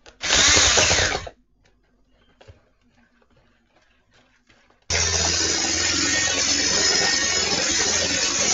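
Electric hand mixer running steadily, its beaters whisking eggs and sugar in a bowl, from about five seconds in. Near the start there is a loud burst lasting about a second.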